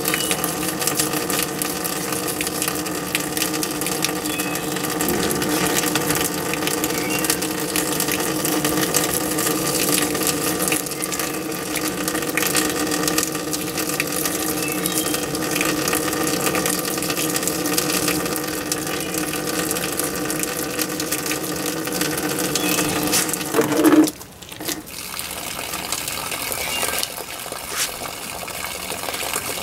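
Garden hose running water onto a cutting board: a steady gushing rush with a constant hum under it. About 24 seconds in the sound swells briefly, then drops sharply and carries on quieter.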